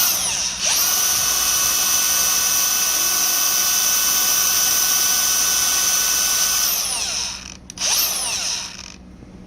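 Brand-new Milwaukee M18 cordless angle grinder's brushless motor free-running: it spins up to a steady high whine, holds for about six seconds, winds down, then is blipped once briefly near the end. The owner finds it doesn't sound right and seems tight and bound up, with a slightly electrical smell.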